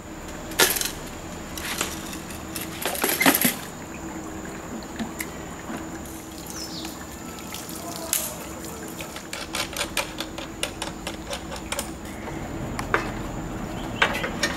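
Hands handling a Halcyon semi-closed rebreather's fittings, valves and hoses: a few short hissing bursts in the first few seconds, then a run of sharp clicks and knocks of plastic and metal parts.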